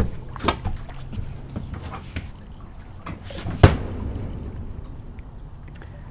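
Knocks and thumps on the dock deck as a big catfish is lifted in with lip grippers and set down, with one loud sharp thump about three and a half seconds in.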